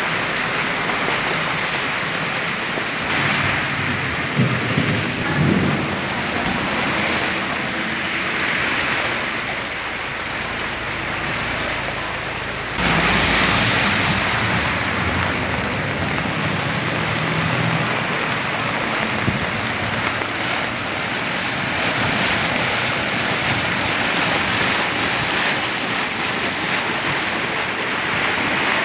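Torrential rain pouring onto a flooded street, a steady hiss of falling and running water. About 13 seconds in it suddenly gets louder as a car drives through the floodwater, its tyres throwing up spray.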